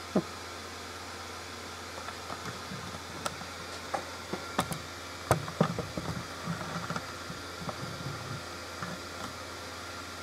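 Gemmy airblown inflatable snowman's built-in blower fan running with a steady whirr and low hum, keeping the figure inflated. A sharp click near the start and a scattered run of knocks and thuds through the middle sound over it.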